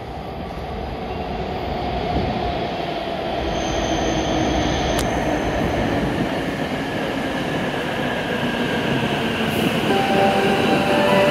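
E7 series shinkansen train pulling in alongside the platform, its rolling rumble and rush of air growing louder as the cars slide past. A single sharp click comes about five seconds in, and a whine of several steady tones joins about ten seconds in as the train slows to its stop.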